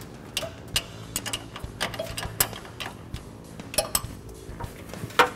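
Irregular metallic clicks and clinks of a wrench working on the mounting nuts as an old master cylinder is unbolted from the firewall, with the loudest knock near the end.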